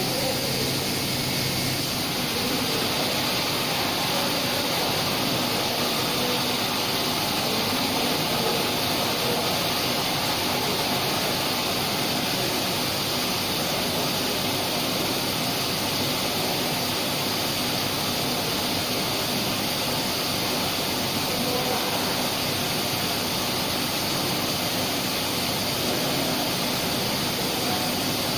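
CNC A5 five-axis tool grinder running an automatic grinding cycle: a steady rushing noise of the spindle and the oil coolant spraying over the work, unchanging throughout.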